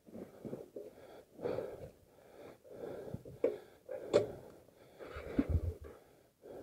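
A person's heavy breathing in short gusts about once a second, with brief gaps between, and a few sharp knocks near the middle as the motorcycle jolts over loose gravel.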